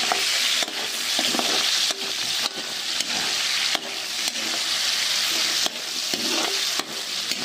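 Pork and garlic sizzling in hot oil while being sautéed, with a steady frying hiss. A spatula stirs and scrapes the pan, making short sharp strokes at irregular intervals of about half a second to a second.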